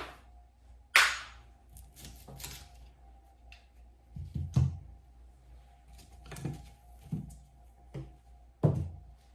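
Knocks and clunks of car pedal-assembly parts being handled and set down on a workbench: one sharp knock about a second in, several softer ones later, and another sharp one near the end.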